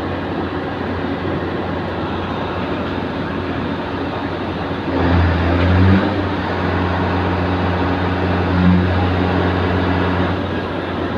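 Steady rumble of vehicle engines on a docked ferry; about five seconds in, a nearby heavy engine comes in louder with a low steady hum for about five seconds, swelling twice, then drops back.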